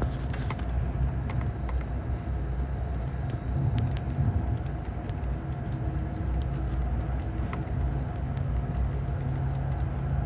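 Simulated diesel locomotive engine sound from the sound system of an HO-scale model SD90/43MAC, running with a steady low rumble, with a few faint clicks over it.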